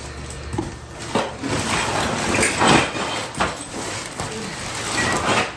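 Demolition debris being swept up and handled on a floor: a series of irregular scraping, rustling strokes.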